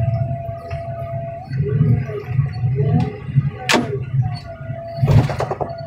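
Diesel heavy equipment running with a low rumble and a held whine that wavers and bends in pitch, like metal and hydraulics under strain. A sharp crack comes a little past halfway, and a short burst of crunching comes near the end.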